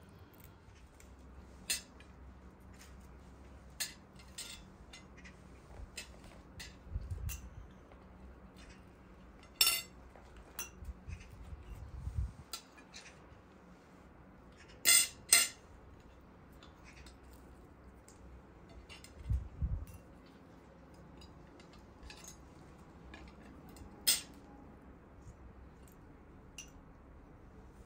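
Forks and spoons clinking against china plates during a meal: scattered sharp clinks, the loudest a close pair about fifteen seconds in, with a few soft low thumps between them.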